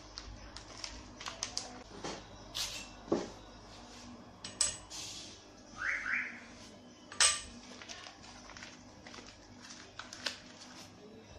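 Scattered metal clicks and clinks of crankshaft bearing shells and main bearing caps being handled and set onto an Atos engine block, with a brief ringing about six seconds in and the sharpest clack about a second later.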